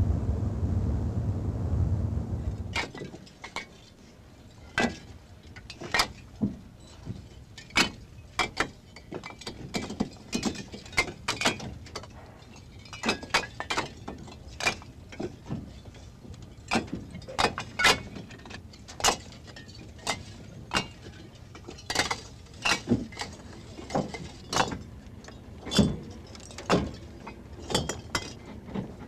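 A low rumble that cuts off about three seconds in, then hollow bricks knocking and clinking against one another as they are lifted and stacked by hand: sharp, irregular knocks about once or twice a second.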